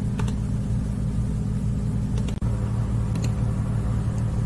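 Steady low hum with a few faint ticks; it drops out for an instant about two and a half seconds in.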